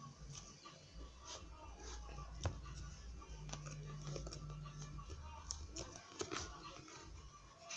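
Homemade slime being stretched and squeezed by hand: faint, scattered sticky clicks and crackles over a low hum.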